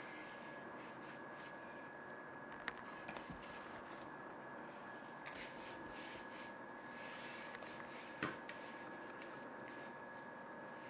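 Faint rubbing and handling sounds over a steady low hum, with a sharp click about two and a half seconds in and a louder knock about eight seconds in.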